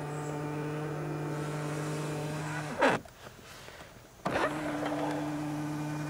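Tesla Model X powered second-row seat motor running with a steady hum, stopping with a brief knock about three seconds in, then starting again with a click about a second later. The seat travels normally, without the loud spring-loaded pop that a sticking trim plate at the seat base otherwise gives at the end of travel.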